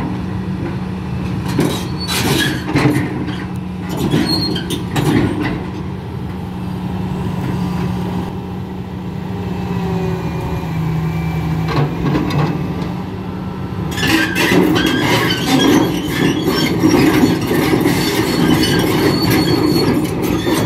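Doosan crawler excavator's diesel engine running while its steel tracks clank and knock on the trailer ramps as it is driven off a lowbed trailer. In the last third the track clatter and squeal get louder and denser as the machine rolls down the ramps.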